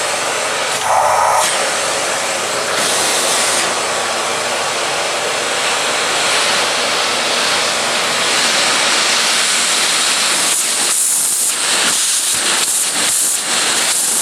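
Miele S121 canister vacuum cleaner, with its 1600-watt motor, running with a steady rushing hiss of airflow while it picks up paper and tissues. From about ten seconds in, the sound breaks up into quick uneven flutters.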